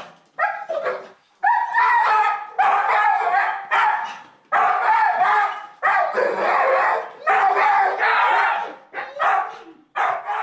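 Dog barking in quick, high runs of barks with short pauses between them.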